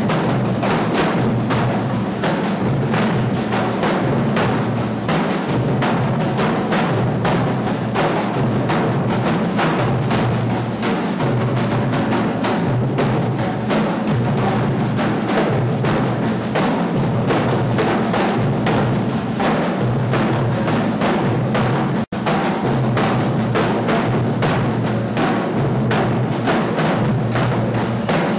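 Drum ensemble playing a batucada groove: a dense, steady rhythm of drum strokes over deep bass drums. The sound cuts out for an instant about three-quarters of the way through, then carries on.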